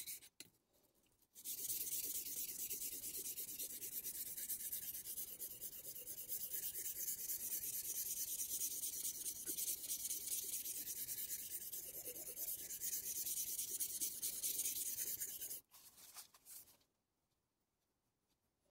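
Steel blade of a Deba knife being rubbed back and forth on a Shapton Glass whetstone, a steady gritty scraping while the cutting edge is ground toward a burr. It starts about a second and a half in and stops abruptly a few seconds before the end, with a couple of faint scrapes after.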